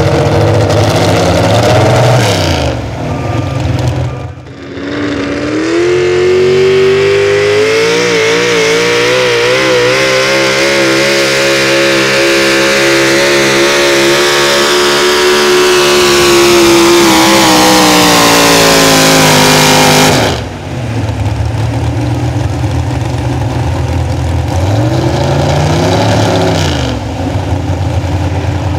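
Super stock 4x4 pulling truck's engine at full throttle down the track: the pitch climbs over a few seconds to a high, wavering scream held for about twelve seconds, sagging a little near the end, then drops away abruptly. Before and after, a pulling truck's engine idles with a few quick revs.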